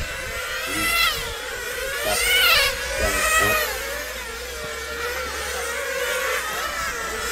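Fuel-powered radio-controlled racing cars' small engines buzzing at high revs, several at once, their pitch climbing and dropping as the cars accelerate and brake.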